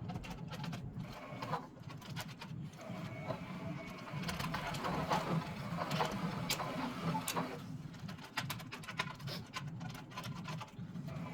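MIG welding wire being wound onto a spool on a homemade wooden jig: the spool and wire turning with a steady low hum and many small clicks and rattles, busiest in the middle.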